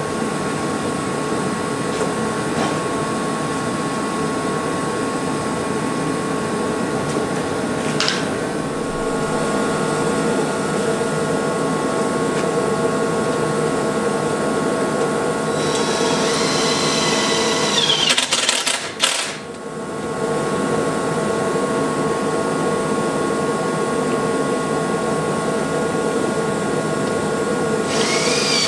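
A steady motor hum runs throughout. A power drill briefly whirs, driving screws, about two thirds of the way through and again near the end.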